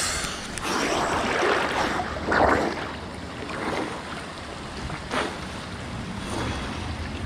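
Water splashing and sloshing around a swimmer in a spring pool, with a louder splash about two and a half seconds in.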